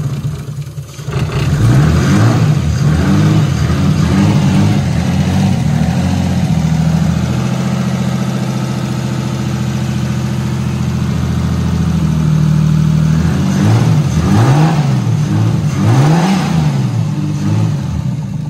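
Nissan RB25DET turbocharged straight-six running just after reassembly with new cam seals. It idles steadily, with runs of quick throttle blips, revs rising and falling, about two seconds in and again a few seconds before the end.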